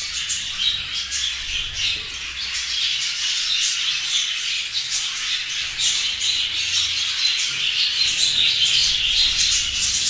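A colony of budgerigars chattering and chirping all at once, a dense continuous chorus of many birds, a little louder in the second half.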